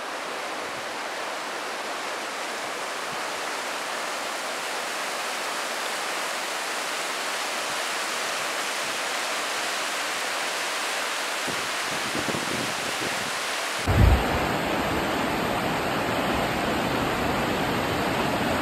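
Fast, silt-grey Sindh River rushing over rapids: a steady rush of water. About fourteen seconds in there is a short bump, and after it the rush has more low rumble in it.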